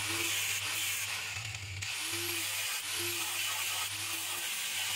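Small electric power tool whirring steadily, with a brief dip about a second and a half in.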